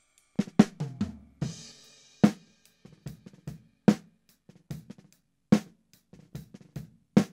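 A recorded snare drum track played back through an opto compressor. Strong snare hits come about every second and a half, softer hits fall between them, and a cymbal wash sounds near the start.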